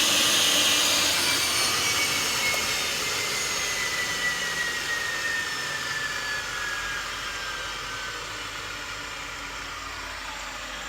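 Rover gas turbine spinning down after a failed start: a turbine whine that slides slowly down in pitch under a steady rush of air, fading as the rotor slows. The engine has not lit, which the owner suspects is electrical or a high-pressure shut-off valve that keeps closing.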